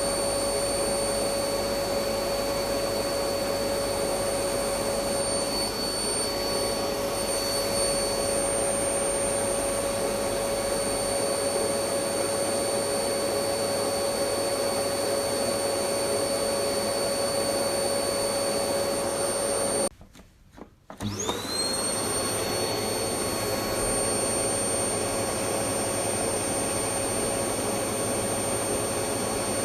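Electric vacuum cleaner running steadily with a high whine over its rushing air noise. About two-thirds through it cuts out for about a second, then the motor comes back with its whine rising as it spins back up to speed.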